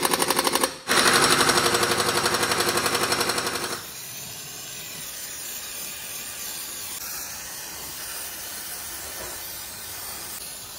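Pneumatic impact wrench hammering on a front wheel's axle nut, in two runs with a short break just under a second in. About four seconds in, it gives way to the steady hiss of an aerosol spray can.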